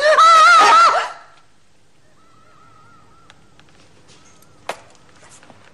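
A woman's loud, high-pitched scream with a wavering pitch, lasting about a second. A fainter wavering high note follows a couple of seconds in, and a single sharp knock comes near the end.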